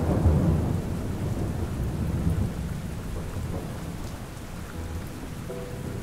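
Steady rain with a low roll of thunder that fades away over the first two or three seconds.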